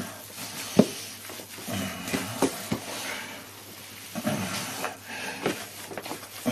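Hands kneading minced pork sausage meat in a plastic tub to work in the salt and pepper: wet squelches and soft slaps at irregular intervals, the sharpest about a second in.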